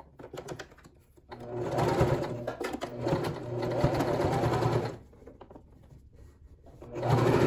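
Electric domestic sewing machine stitching fabric binding onto terry cloth. It runs in two bursts: one of about three and a half seconds starting just over a second in, and another starting near the end.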